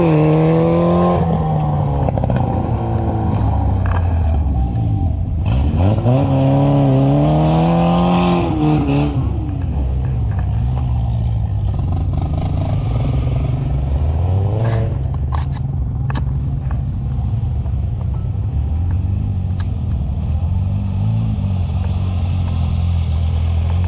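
ATV engine revving through deep mud, its pitch climbing and falling twice in the first nine seconds over a steady engine drone. A few sharp clattering knocks come about fifteen seconds in.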